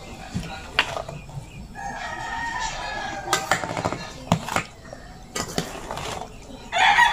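A metal spoon clinking and scraping against a stainless steel bowl as food is mixed. A rooster crows about two seconds in and again near the end.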